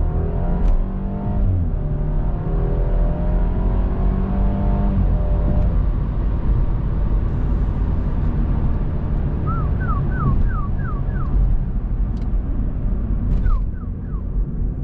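BMW 125i with its original exhaust, accelerating hard in Sport Plus: the engine note climbs and drops back twice as it revs up and shifts, then settles into a steady run. A series of short high chirps comes about ten seconds in and again near the end.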